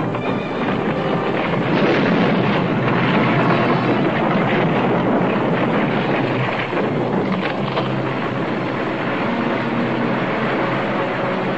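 A cartoon soundtrack's loud, steady rushing noise effect, with a few faint held music notes underneath. It is the effect for the laser drilling through the mountain that lets the lava out.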